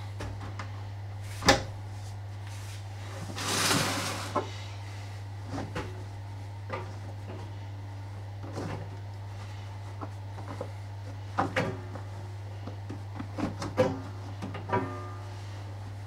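Clothes being handled and loaded into a front-loading tumble dryer's drum: fabric rustling, with a swell about three to four seconds in, and scattered knocks and clicks, over a steady low hum.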